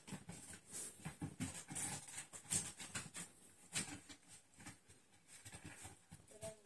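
American Bully puppies' paws and claws pattering and scrabbling on a wooden board and bedding: irregular light taps and scuffs as they move about. A brief squeak comes near the end.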